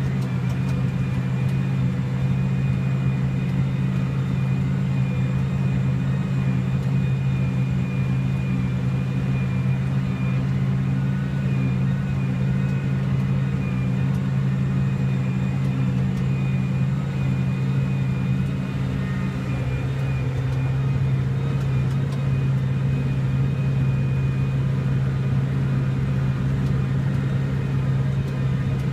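Case Maxxum 100 hp tractor engine running steadily while pulling a scarifier through stubble, heard inside the cab: an even low drone with a thin high whine above it.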